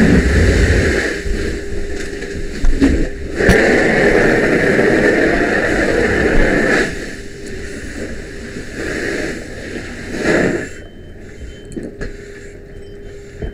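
Fire hose nozzle opened in bursts of a few seconds, its water stream hissing onto a second-story interior fire during knockdown. The longest burst runs from about three to seven seconds in, with a short one near the end.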